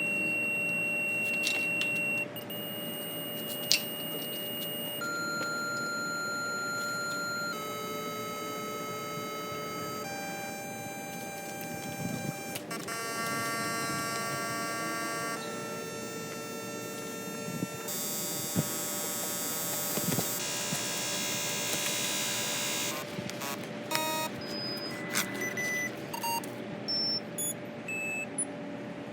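A series of electronic beeps and tones: about nine steady tones, each held for two to three seconds and changing in pitch and tone colour, then a quick run of short beeps over the last several seconds.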